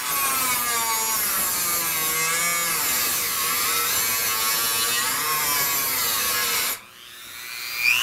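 Dremel rotary tool with a metal-cutting disc grinding a slot into the steel head of a tamper-proof security screw, a steady high, gritty whine. It cuts off abruptly about seven seconds in.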